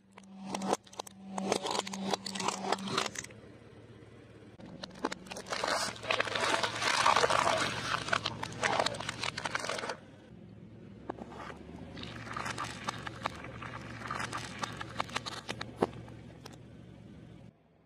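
A car tyre rolling slowly over plastic bottles and containers, crushing them with crackling and crunching. The sound comes in three stretches with short pauses between, the middle one the loudest, over a faint low hum.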